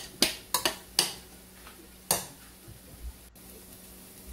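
Sharp clinks of metal cookware against a pot, five in quick succession in the first second and one more about two seconds in.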